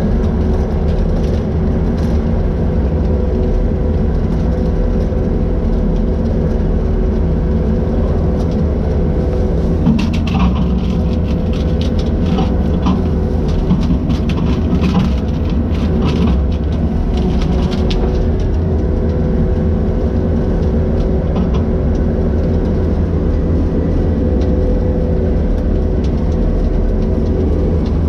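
Skid steer engine running steadily, driving a bushhog, with a spell of crackling and knocking about ten seconds in that lasts several seconds.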